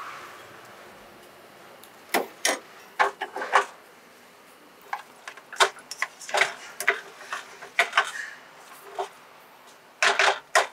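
Metal ladle and spoon clinking, tapping and scraping against stainless steel steam-table pans and a cooking pan while stew is served, in irregular sharp knocks from about two seconds in.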